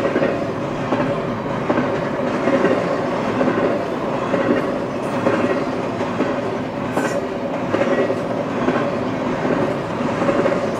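Double-stack intermodal freight train of container well cars passing close by: continuous wheel-on-rail noise with a steady hum and scattered sharp clicks.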